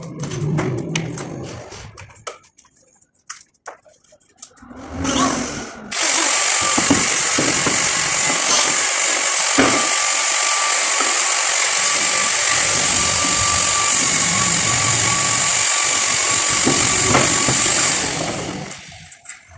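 Scattered knocks and clatter of tools and wood being handled, then about six seconds in a power tool starts and runs steadily at full speed with a thin high whine, with no change under load. Near the end it switches off and winds down.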